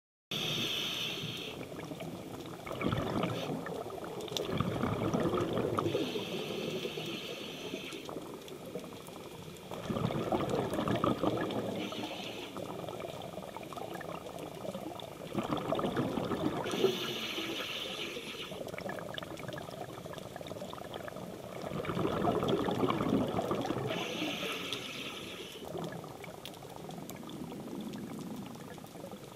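Scuba diver breathing through a regulator, heard underwater. A short hiss on each inhale is followed by a few seconds of bubbling exhaust, repeating every five to seven seconds.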